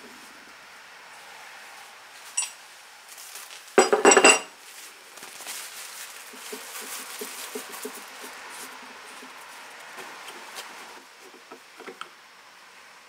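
Metal tools and parts clinking as they are handled and set down, loudest in a cluster of clinks about four seconds in. Afterwards come softer small clicks and a faint rustle as paper towels are laid around the fuel filter.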